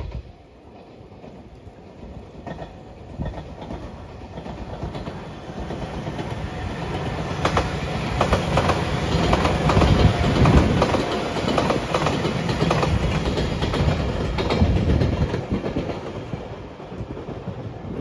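Five-car electric limited-express train passing at speed, its wheels clacking rapidly over the rail joints. The sound builds, peaks about halfway through, then fades as the train goes by.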